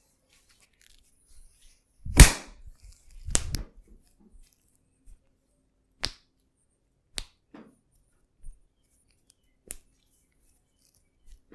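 Sharp impact sounds from a hands-on massage: one loud crack about two seconds in, a second one about a second later, then three fainter, shorter clicks spread through the rest.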